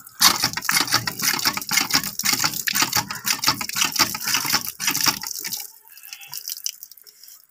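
Hand water pump (nalka) drawing water after a new piston washer was fitted, water gushing and splashing from its spout in uneven surges. The flow dies away about five and a half seconds in.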